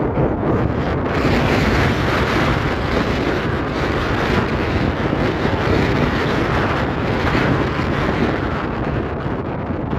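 Wind buffeting the microphone: a loud, steady low rush that swells and eases unevenly.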